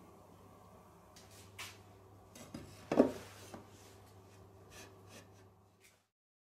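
A wooden shelf box being handled on a workbench: scattered light clicks and knocks, with one sharp knock about three seconds in. The sound cuts to silence just before the end.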